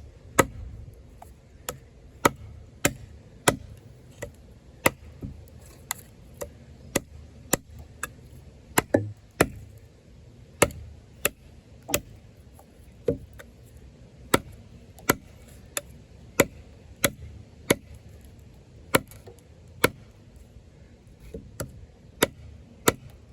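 Off-Grid Caiman XXL bowie knife chopping into wood: a steady run of sharp, solid chops, about three every two seconds.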